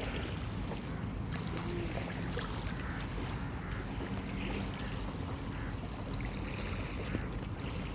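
Wind buffeting the microphone at the seashore, a steady low rumble with faint, indistinct background sounds from the waterfront.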